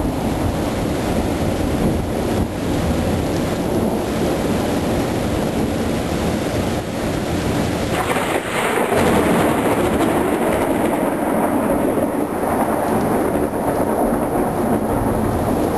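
Thunder rumbling over steady rain; about eight seconds in the rumble turns deeper and a little louder as the hiss of the higher frequencies falls away.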